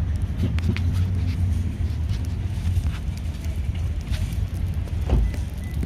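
Steady low rumble with scattered light clicks and a single knock about five seconds in.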